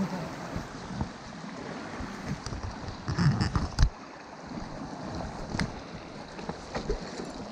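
Shallow mountain stream running over stones, a steady rush. A few sharp knocks and handling bumps sound over it, the sharpest a little under four seconds in.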